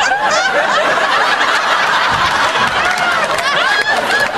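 A burst of laughter from the sitcom cast and studio audience, many voices laughing at once, loud and sustained, as a take breaks down.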